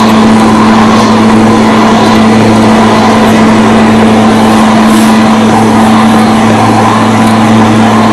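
Lawn mower engine running at a steady speed: a loud, constant drone that holds one pitch.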